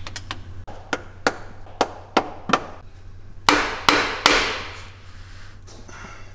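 Mallet tapping a cup-shaped driver to seat a new rear main seal into the back of a Mazda Miata engine. A series of light, sharp taps is followed by three harder blows in quick succession a little past the middle, each with a ringing tail.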